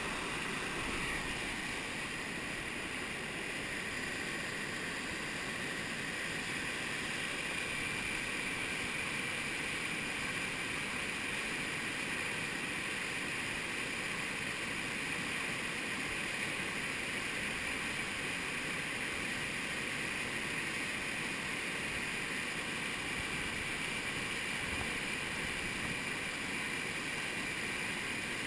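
Steady rush of river whitewater: water pouring over a low dam spillway and churning in the standing wave below, close to the microphone.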